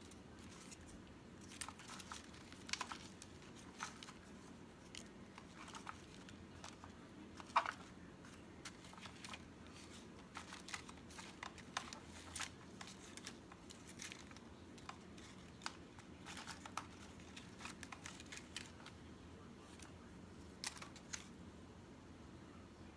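Paper flower embellishments being rummaged through in a clear plastic box: faint crinkling and rustling with scattered light clicks and taps, the loudest click about seven and a half seconds in.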